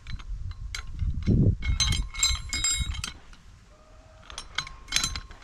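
Metal clinking and rattling with handling knocks as a shot steel target is handled. There are two bouts of ringing clinks, the first about two seconds in and a shorter one near the end.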